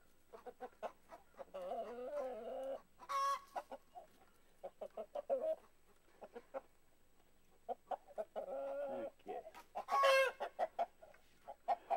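Domestic chickens, a hen and a rooster, clucking and squawking while being fended off with a rake. Two short, loud, high-pitched squawks stand out, about three seconds in and again near the end.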